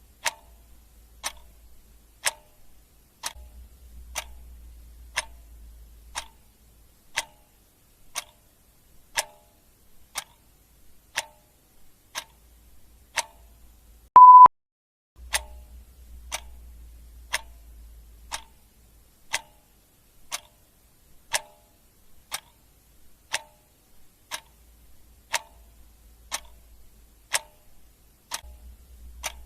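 Clock ticking steadily, about one tick a second. A single short high beep, louder than the ticks, sounds about fourteen seconds in.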